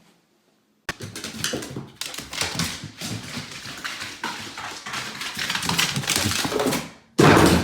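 A dog making vocal noises, with tapping sounds mixed in. It starts abruptly about a second in, and a much louder sound cuts in suddenly near the end.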